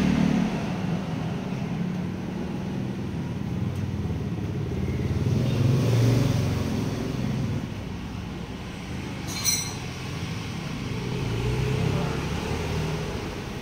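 Road traffic engines rumbling past, swelling twice and fading, with one sharp clink about two-thirds of the way in.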